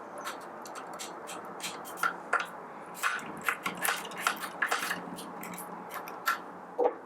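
Screwdriver working out the Phillips screws that hold the motor in a Baratza Forte coffee grinder: a run of sharp little clicks and light metallic clinks, the loudest about two seconds in and near the end.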